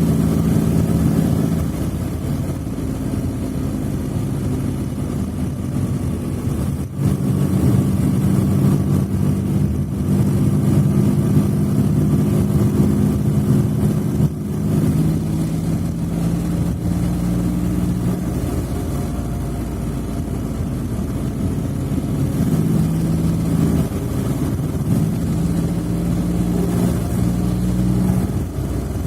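Smart fortwo (451) engine running with a steady hum, its tone shifting slightly a few times, with a brief dip about seven seconds in.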